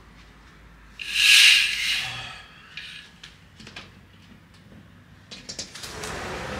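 A curtain swished open along its rail, a loud swish about a second in, followed by a few light clicks and knocks as a window is unlatched and pushed open. Near the end a steady rush of outside noise comes in through the opened window.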